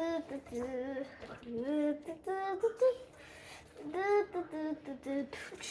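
A child singing a little tune to herself in several short phrases, with held and sliding notes.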